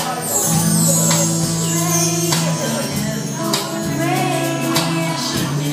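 Live acoustic music: a woman singing into a microphone, backed by a strummed acoustic guitar and light percussion strokes.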